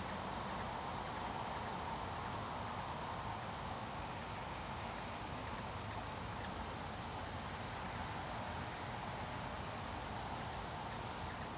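Rural outdoor ambience: a steady low hum of light traffic in the distance, with a small bird giving short, high chirps every one to three seconds.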